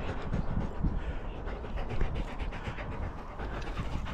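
Several dogs panting after a run.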